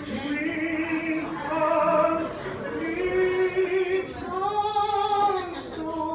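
A man singing unaccompanied in a mock-operatic style into a microphone: several long held notes, the one about four seconds in arching up and down with a wavering vibrato.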